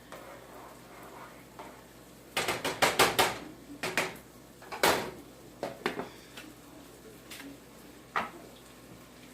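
Kitchen utensils and cookware clattering: a quick run of sharp clanks a couple of seconds in, then scattered single knocks.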